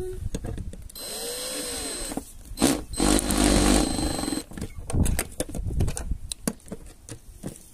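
Electric drill running in two short spells, driving small screws into wood, the second spell louder. Sharp clicks and knocks of handling follow.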